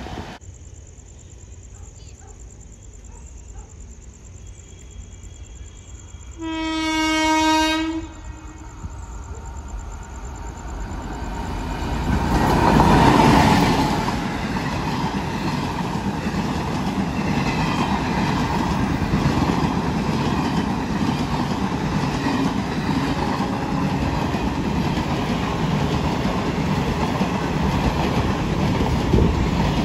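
An Indian Railways train sounds one long horn blast about a quarter of the way in, then rushes past at speed. The noise builds to its loudest near the middle, and the wheels go on clattering over the rail joints to the end.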